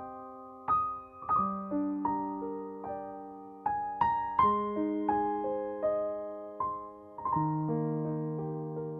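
Background music: soft piano playing slow, gently arpeggiated chords, each note struck and left to ring and fade.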